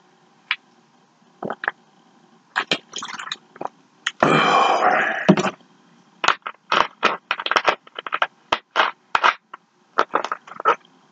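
Fast-food packaging being handled: crinkling and scraping in short irregular crackles, with a louder rustle lasting about a second some four seconds in.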